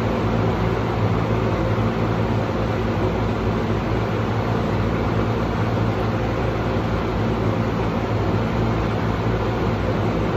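Yellow floor drum fan running, a steady rushing hum that holds even.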